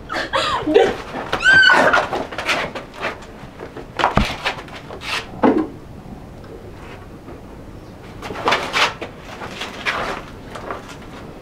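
Scuffle on a concrete floor: a short high cry near the start, then a sharp thud about four seconds in, further knocks, and the rustle and shuffle of bodies and clothing grappling.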